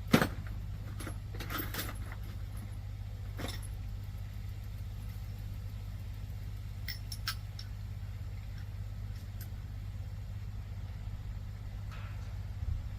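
Scattered metal clicks and clinks of hand tools working on a riding mower engine to pull its spark plugs, the sharpest right at the start, over a steady low hum.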